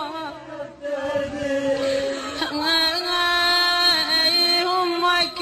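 A woman's voice chanting an Iraqi Shia mourning lament (na'i) in long held notes. The voice dips briefly about half a second in, then carries on.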